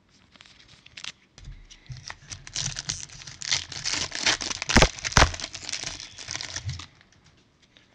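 A 2019-20 Panini Mosaic Fast Break basketball card pack wrapper being torn open and crinkled by gloved hands, with two sharp snaps about five seconds in.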